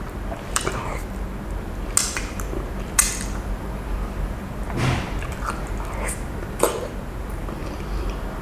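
Close-miked sounds of eating fish with the fingers from a bowl: a handful of sharp, wet clicks and smacks, irregularly spaced about a second or more apart, with faint rustling between them.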